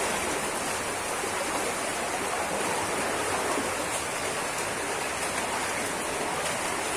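Steady rushing of a shallow, strong river current flowing over stones.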